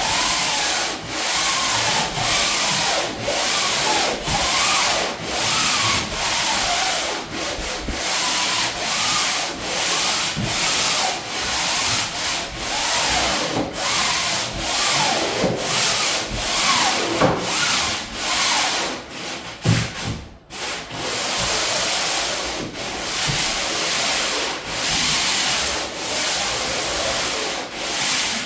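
Sandpaper rubbed by hand back and forth over primer-painted plywood, in steady rasping strokes about once a second with a brief pause near the two-thirds mark. A light scuff sanding of the first coat to smooth the surface before a second coat.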